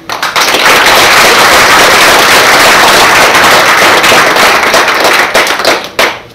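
Audience applauding: a loud, dense crackle of many hands clapping that starts suddenly, then thins to a few separate claps about five seconds in before dying away.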